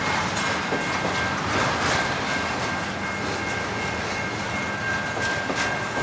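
Double-stack container well cars of a freight train rolling past: a steady rumble of steel wheels on rail, with a few faint clicks and a steady high whine running under it.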